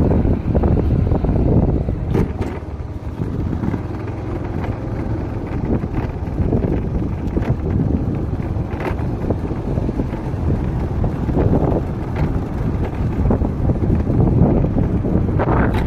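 Wind buffeting the microphone of a moving vehicle, over a low, uneven rumble from the ride along the road.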